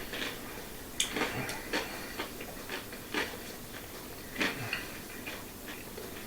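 Utensils knocking and clinking against a bowl and dishes in a few scattered taps while stuffing is mixed.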